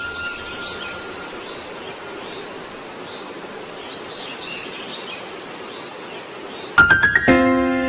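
Steady hiss of ambient noise with faint high chirps, like insects or birds outdoors. Near the end, music comes in: a few quick struck notes, then a held chord.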